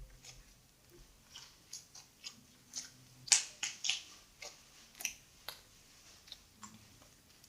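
Sticky borax slime being squeezed and pulled in the hands, giving irregular wet clicks and pops, the loudest a little over three seconds in.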